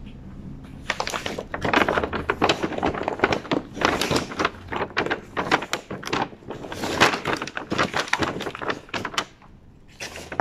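A carrier bag rustling and crinkling as it is handled and opened: a dense run of crackles that starts about a second in and stops about a second before the end.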